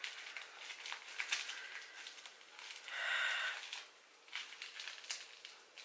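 Rustling, clicking and crinkling of small product packaging being handled and pulled at while someone tries to open it, with one louder crinkle lasting under a second about three seconds in.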